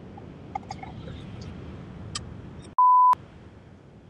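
Steady road and rain noise inside a moving car's cabin with scattered faint ticks, broken about three seconds in by a short, loud, pure one-note censor bleep that blanks out all other sound while it lasts.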